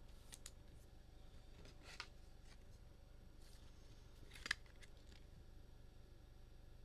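Faint rustling and light clicks of trading cards being handled and slid through the hands, with two sharper clicks about two seconds in and again about four and a half seconds in, over a low steady hum.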